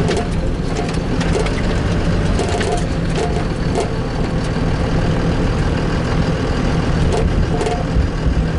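Truck heard from inside the cab, driving over rough ground: a steady engine hum with frequent knocks and rattles.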